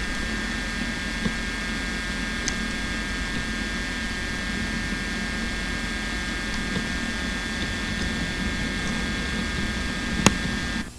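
Steady droning mechanical hum with a set of faint high steady whines over it, and a single sharp click near the end.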